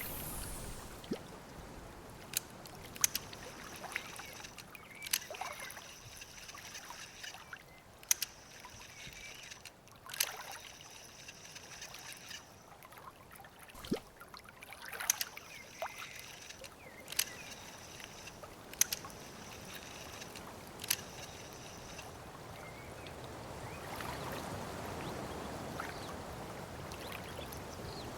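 Lakeside water ambience: gentle lapping and sloshing water with scattered short clicks and small splashes. A soft hiss swells over the last few seconds as rain sets in.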